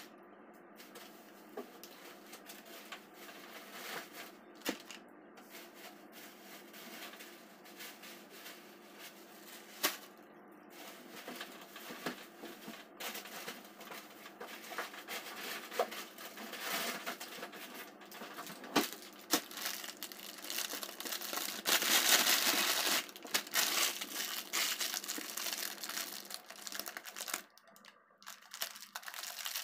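Thin plastic grocery bags crinkling and rustling as they are handled and set down on a counter, with a louder stretch of rustling about two-thirds of the way through.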